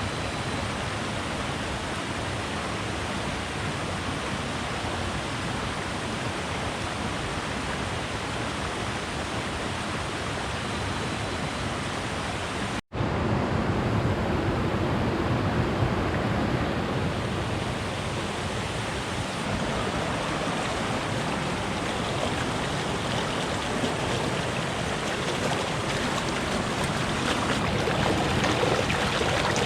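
River waterfall rushing steadily, a continuous sound of falling and tumbling water. About halfway through it cuts out for an instant and comes back slightly louder and fuller.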